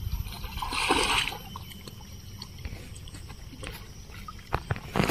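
Pond water splashing as a hooked fish thrashes at the surface, loudest about a second in, then quieter sloshing and a few sharp splashes near the end as a person wades in the shallows.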